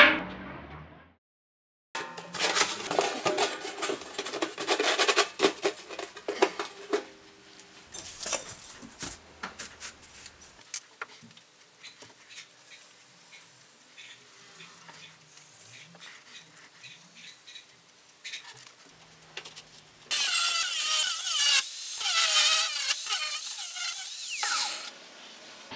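Clicks, scrapes and handling of material on a steel-topped workbench, then, for about four seconds near the end, an angle grinder cutting through steel plate.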